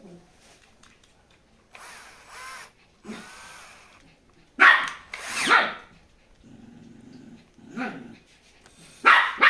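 A dog barking several times in short, loud barks, two close together about halfway through and more near the end.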